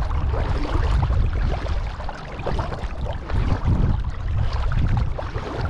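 Kayak on the water: water splashing and trickling around the boat, over a heavy low rumble of wind buffeting the microphone that swells and eases.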